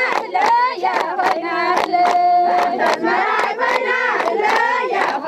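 A crowd singing together in celebration, several voices at once, with steady rhythmic hand clapping about three claps a second.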